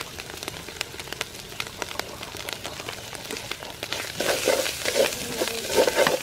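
Chopped dried pepper and curry powder sizzling and crackling in hot oil in a metal pot. About four seconds in, a wooden spatula starts stirring the mixture more briskly, scraping the pot in repeated strokes that come through louder.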